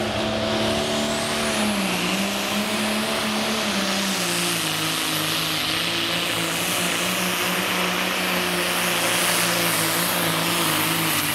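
Turbocharged diesel pulling tractor running flat out under load as it pulls the sled. The turbocharger's whine climbs steeply in the first second and a half, then holds high over the engine's steady drone.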